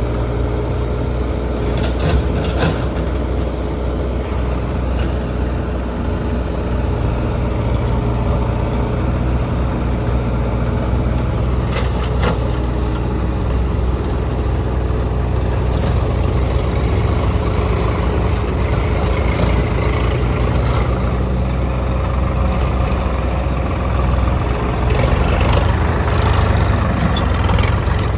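Heavy diesel engine of a JCB 3DX backhoe loader running steadily under work, with sharp metallic clanks twice about two seconds in, once about twelve seconds in, and several close together near the end.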